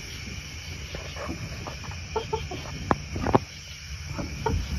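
Chickens in a coop giving short clucks as a rooster is placed on the roost among the hens, with two sharp knocks about three seconds in.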